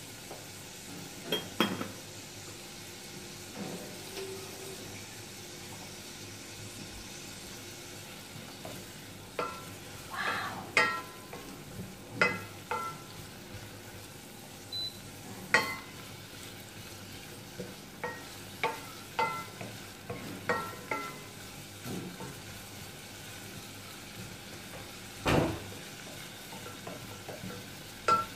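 Wooden spoon stirring diced celery sautéing in butter in a stainless steel saucepan: a faint steady sizzle with irregular knocks of the spoon against the pot that ring briefly, the loudest a few seconds before the end.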